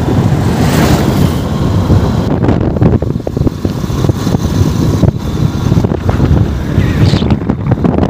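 Wind buffeting the microphone of a moving motorcycle, with the engine and road noise underneath as a steady rumble.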